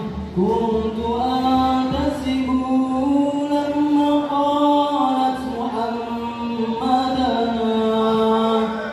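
Chant-like singing: a voice holding long, drawn-out notes that slide smoothly from one pitch to the next.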